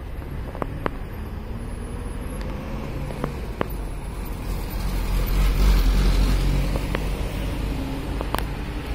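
Road traffic, with an ambulance van's engine pulling away through an intersection. The low rumble swells to its loudest about five to six seconds in as the van passes, and a few sharp clicks sound over it.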